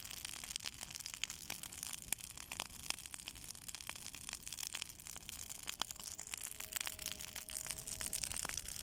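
Bonfire burning, crackling with dense, irregular pops over a steady hiss.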